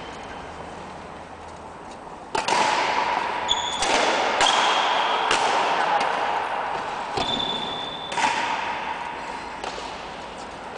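Badminton rally: a shuttlecock struck back and forth by rackets, about seven sharp hits a second or so apart, each echoing in a large hall, with a few short high squeaks like shoe soles on the floor. The hits stop near the end as the rally ends.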